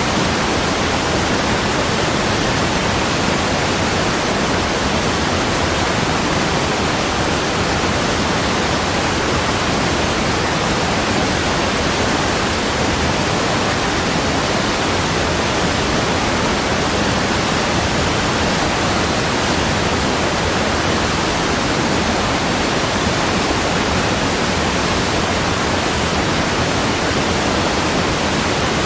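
Steady, unbroken rushing of water, an even hiss with no splashes, drips or changes.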